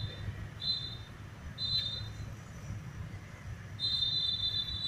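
A steady, high-pitched whistle-like tone that sounds in short stretches: three brief ones in the first half and a longer one near the end, over a low steady hum.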